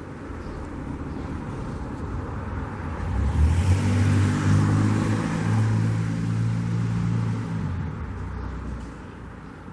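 A car passing by: its engine and tyre noise swell up, are loudest in the middle, and fade away near the end.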